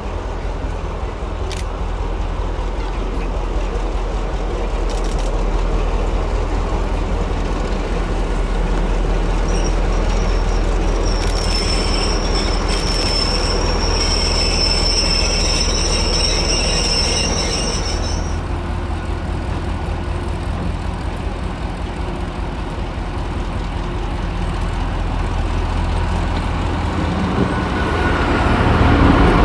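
Heritage diesel locomotive running with its train, a steady low engine throb underneath. About ten seconds in, the wheels set up a high squeal that lasts some eight seconds and then stops; the engine sound grows louder near the end.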